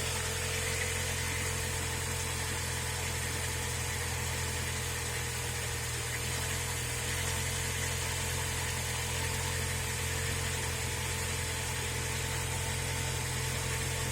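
UAZ Patriot's ZMZ-409 2.7-litre four-cylinder petrol engine running steadily on its raised warm-up idle shortly after a cold start. It runs smoothly, with no knock yet.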